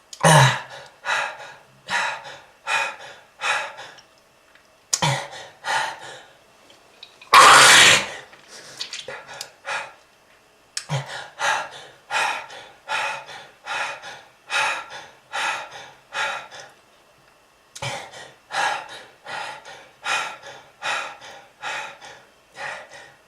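A person coughing in long fits of short, rapid coughs, about two a second, with brief pauses between the fits: a smoker's cough. About seven seconds in comes one longer, louder burst.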